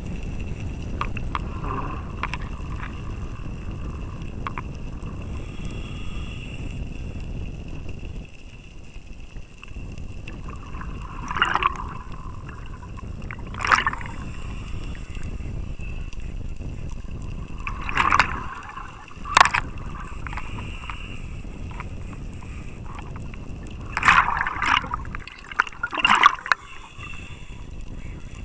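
Underwater recording in a strong current: a steady low rush of water against the camera. Every few seconds there is a short, loud bubbling burst from scuba divers exhaling through their regulators.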